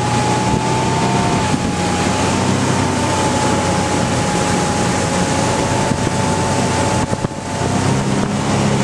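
Bass boat's outboard motor running steadily at speed, with a steady whine over the rush of wind and water. The loudness dips briefly about seven seconds in.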